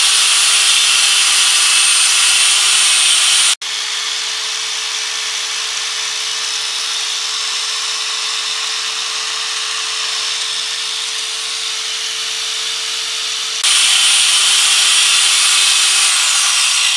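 Electric 800 W, 100 mm angle grinder running free with no disc fitted: a steady high whine at its no-load speed of about 13,000 rpm. The sound drops suddenly in level about three and a half seconds in and steps back up about ten seconds later. Near the end the motor is switched off and starts to wind down.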